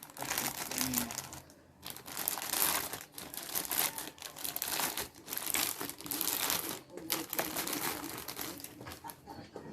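Packaging crinkling and rustling as the keyboard is unwrapped during unboxing, in several bouts with short pauses.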